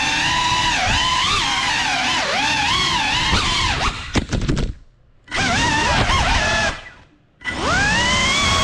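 FPV quadcopter's brushless motors whining, the pitch rising and falling with the throttle. About four seconds in, a quick run of knocks as it crashes. The motors cut out twice briefly, then spool back up with a rising whine and hold steady.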